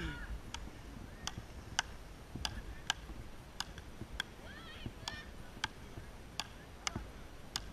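Frescobol rally: wooden paddles hitting a rubber ball back and forth, a sharp crack roughly every half second to second, about a dozen hits in a steady rhythm.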